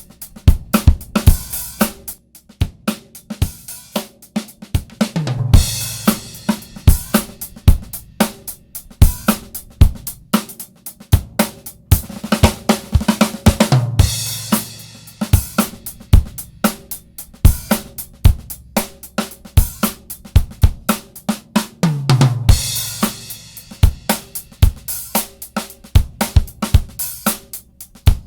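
Drum kit recording with kick, snare, hi-hat and cymbals playing a steady groove, heard through a Mother WAI 2950 three-band EQ. The pattern repeats about every eight seconds, each cycle with a low sustained tone.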